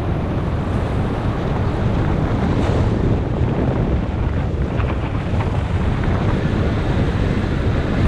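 Airflow in paragliding flight buffeting a GoPro HERO5 Black's microphone: a steady rush of wind noise, heaviest in the low end.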